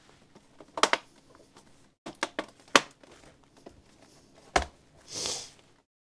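Plastic snap-fit clips of an HP 15-da0511sa laptop's bottom case clicking into place one after another as the case is pressed together, several sharp snaps at uneven intervals. Near the end there is a short brushing rustle as the laptop is handled.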